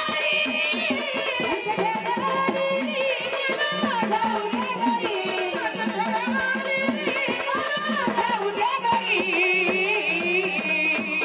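Marathi gondhal devotional folk music: a woman singing a wavering melody over fast, steady drum and percussion beats.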